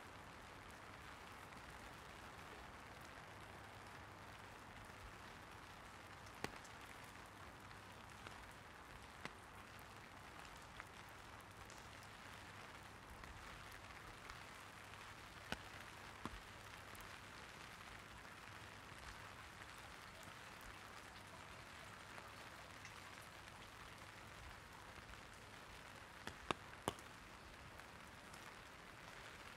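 Light rain pattering steadily on an umbrella overhead, a soft even hiss. Now and then a single larger drop lands with a sharp tick, three in quick succession near the end.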